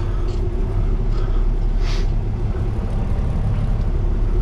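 Peterbilt 389 semi truck's diesel engine running steadily at low revs, heard from inside the cab as the rig starts backing up, with a brief hiss about two seconds in.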